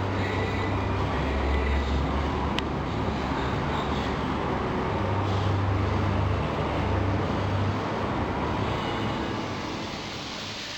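Steady mechanical noise with a low hum that swells and fades twice, and a single sharp click a little after two seconds in.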